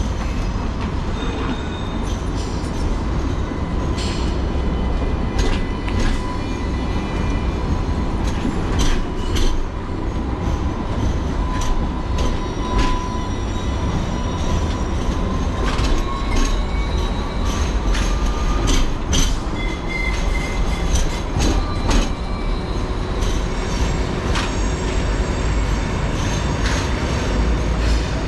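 Sydney Light Rail Alstom Citadis trams rolling slowly through a tight street-corner curve: a long, high wheel squeal holds steady, rises a little in pitch, then stops about two-thirds of the way through. Under it runs a low rolling rumble, with scattered sharp clicks and clanks from the wheels on the track.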